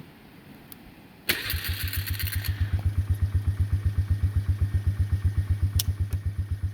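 A vehicle engine cranks and catches about a second in, then settles into a steady, even idle.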